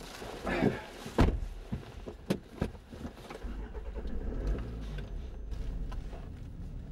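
Inside a car's cabin: a loud thump about a second in, a few sharp clicks, then the car's engine starts and runs with a steady low rumble from about halfway through.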